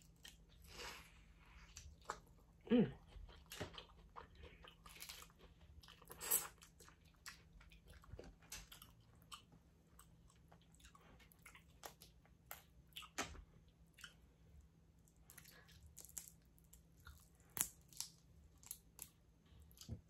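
Close-miked eating of a Cajun-sauce crawfish and mussel boil: faint wet chewing with irregular lip smacks and sharp little clicks.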